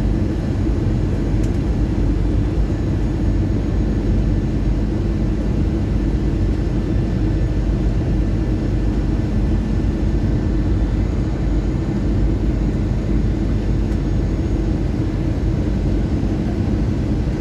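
Steady cabin noise of an Airbus A320 airliner descending on approach: a low rumble of engines and airflow with a few faint steady tones above it.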